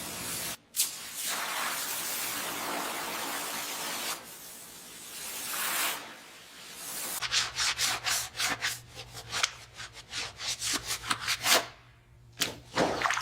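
Abrasive rubbing, as in hand sanding: a steady rasping hiss for the first few seconds, then quick back-and-forth strokes, about four a second, ending in a few separate strokes.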